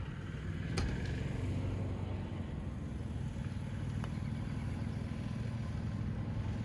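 Steady low rumble of outdoor background noise, with two faint sharp clicks, one about a second in and one about four seconds in.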